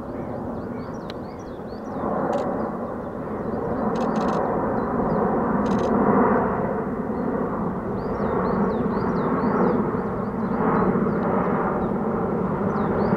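Airbus A400M Atlas's four turboprop engines and eight-bladed propellers droning as it flies low overhead, with steady propeller tones, getting louder about two seconds in.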